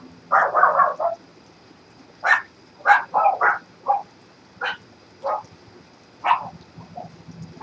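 An animal calling in a series of short, loud calls, about ten in all at irregular spacing, with a quick cluster of calls about half a second in.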